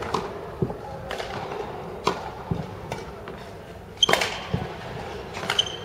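Badminton rally: rackets striking the shuttlecock in sharp hits about once a second, the loudest about four seconds in, with dull thuds of players' feet on the court floor between the hits.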